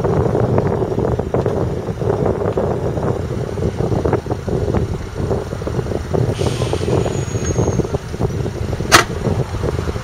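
Deutz-Fahr 5660-HTS combine harvester's 6.1-litre six-cylinder diesel running steadily, with many small clicks and rattles through it. A single sharp clack comes about nine seconds in, louder than anything else.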